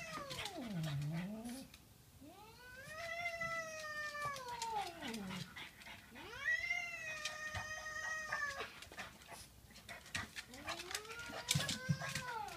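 Domestic cat yowling: a string of long, drawn-out caterwauls, each a couple of seconds long and arching up then down in pitch, a cat's defensive warning at a dog close by. Short clicks fall between the calls.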